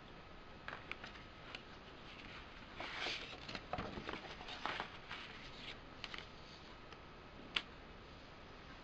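Paper rustling and crinkling as a folded lyric sheet and poster insert are handled and unfolded on a table, busiest in the middle, with a few light ticks before and one sharp tick near the end.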